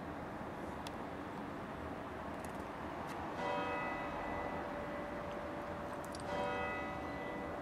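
A bell struck twice, about three seconds apart, each stroke ringing on and fading, over steady background noise.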